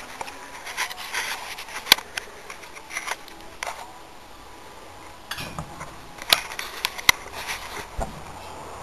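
Scattered metallic clicks and light taps from a bicycle wheel being handled in a truing stand, a hand working the rim and spokes while checking the axle.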